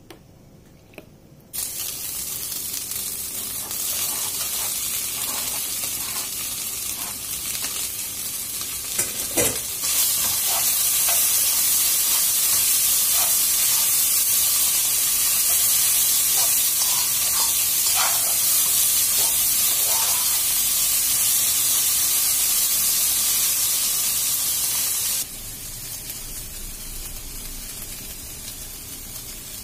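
Diced meat and onion frying in a pan with a loud steady sizzle, a utensil scraping and clicking against the pan as it is stirred. About 25 seconds in it changes to the quieter hiss of water heating in a pot with instant noodles.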